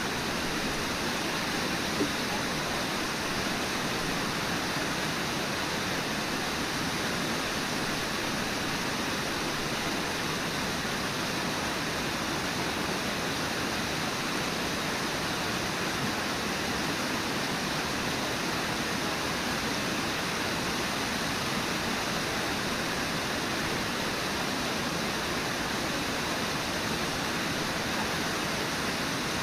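Steady rush of river water, with a single brief click about two seconds in.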